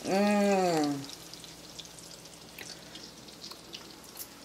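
A woman's drawn-out vocal sound of pleasure while eating, about a second long and falling in pitch. After it, mushrooms in fat in a cast-iron skillet keep sizzling and crackling softly.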